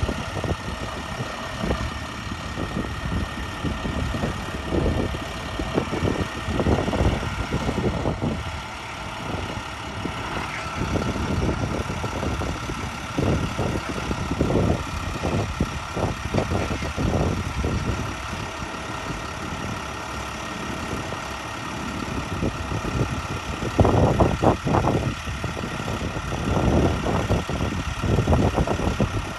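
Truck engine idling, a steady hum with irregular low rumbles over it.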